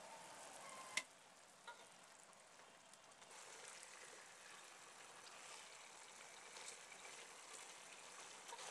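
Faint sizzling and bubbling of chicken in thick masala gravy cooking down in a pot until the oil separates. A single sharp clink about a second in, as the pot's glass lid comes off.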